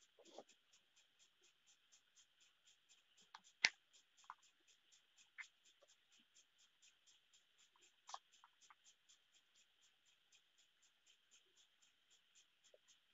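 Faint handling clicks as a small plastic SJCAM SJ4000 Air action camera is turned over in the hands, the loudest click about four seconds in. Underneath is a faint steady ticking about four times a second and a faint hiss.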